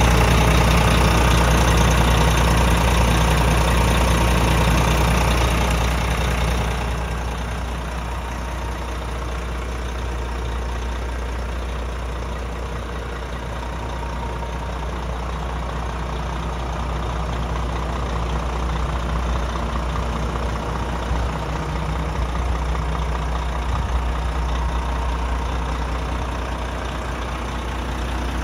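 Volvo FM410 truck's 13-litre six-cylinder diesel engine idling steadily. It is heard close up from under the wheel arch at first, and drops noticeably in level about seven seconds in as it is heard from further off.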